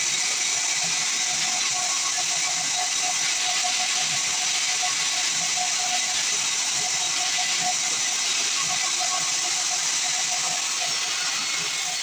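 Band sawmill cutting through a pine log: a steady hiss and whine of the blade in the wood at an even level, with background music faintly underneath.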